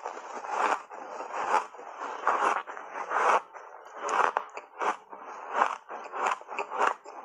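Hard block ice coated in matcha powder being crunched and chewed in the mouth: a run of about a dozen irregular crunches, coming faster in the second half.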